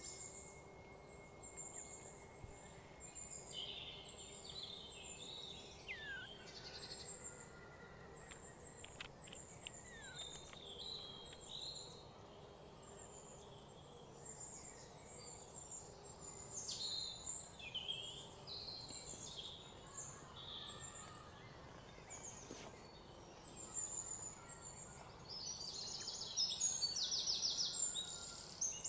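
Birds chirping and calling over faint outdoor background noise, growing busier and louder near the end with a fast, rapidly pulsed trill.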